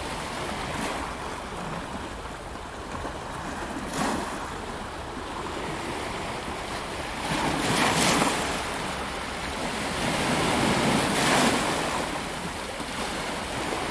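Ocean surf: waves washing and breaking on the shore with wind, swelling louder in surges a few seconds apart.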